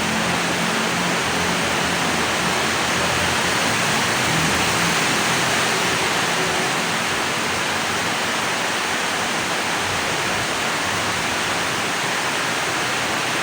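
Steady rain falling, an even hiss with no distinct drops or passing vehicles standing out.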